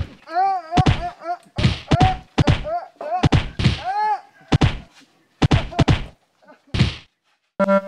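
Staged fight: a fast run of punch and kick thuds, well over a dozen, with short rising-and-falling cries between them. The blows stop about a second before the end.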